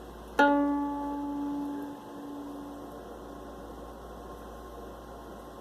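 Viola's D string plucked once, ringing with a clear pitch and fading away over about two seconds. A faint steady hum stays underneath.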